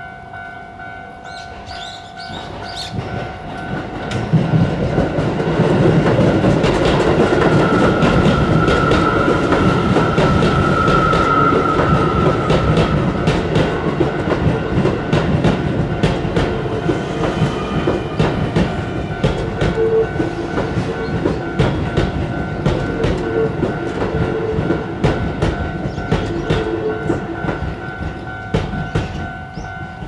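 A Keio Line electric train passes over a level crossing: its noise builds from about two seconds in, stays loud with wheels clicking over the rail joints, and dies away near the end. Under it the crossing's warning bell rings steadily throughout.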